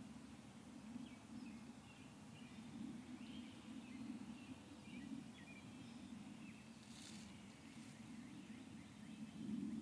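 Faint outdoor ambience: a steady low rumble, with small, short bird chirps scattered throughout and a brief rustle about seven seconds in.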